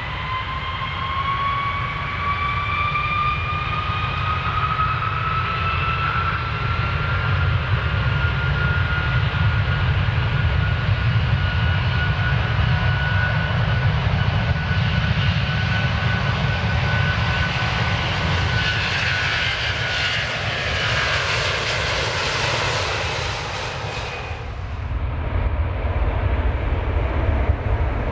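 Airplane engines spooling up for takeoff: a whine rises in pitch over the first several seconds and then holds steady over a low rumble, while a rushing noise builds. Near the end the high rushing noise drops away suddenly, leaving only the low rumble.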